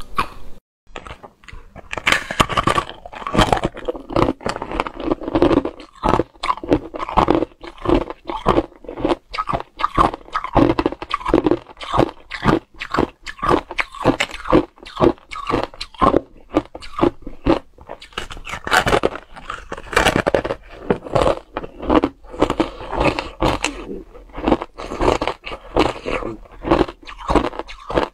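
Matcha-powdered ice crunching as it is bitten and chewed close to the microphone: a dense, continuous run of sharp cracks, with a brief break about a second in.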